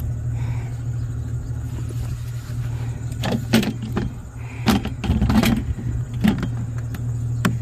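A steady low engine-like hum, with a handful of sharp knocks and clanks in the second half.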